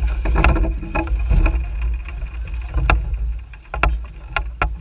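Small sailboat under sail: a steady low rumble of wind and water against the hull, broken by a scattering of sharp knocks and clicks.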